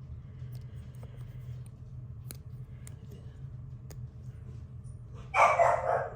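Faint, scattered snips of small cuticle scissors cutting slide tape, over a steady low hum. Near the end comes a single loud, short burst lasting under a second.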